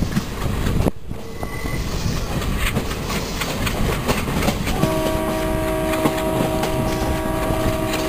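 Passenger train coach running along the track: steady rumble of the wheels on the rails with clickety-clack over the rail joints. About five seconds in, a steady sound of several held tones comes in and keeps on.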